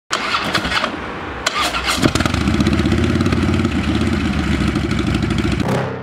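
Harley-Davidson V-twin motorcycle engine being started: it cranks for about two seconds, catches, and settles into a steady idle, which cuts off shortly before the end.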